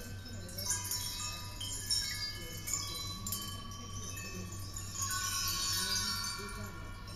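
Iron sound sculpture ringing with clear, bell-like metallic tones. New tones start suddenly about every second and ring on, overlapping one another.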